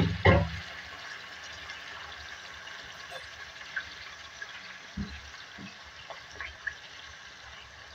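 Raw beef pieces frying in hot oil in an aluminium pot: a steady sizzle. A wooden spatula knocks against the pot twice at the start and twice more about five seconds in.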